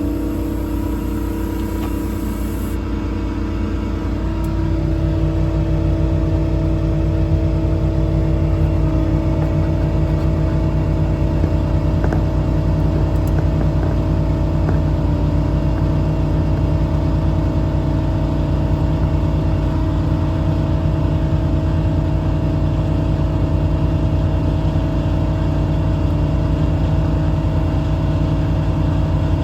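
A 6.7 Cummins diesel runs steadily with the PTO engaged, driving the truck's hydraulic air compressor, which has just been switched on. About four seconds in, the running sound steps up, grows louder and fuller, and then holds steady.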